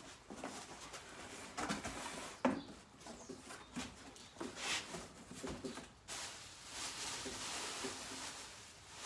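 A cardboard box being unpacked by hand: packing material rustling and crinkling, with parts knocking against the box and one sharp knock about two and a half seconds in.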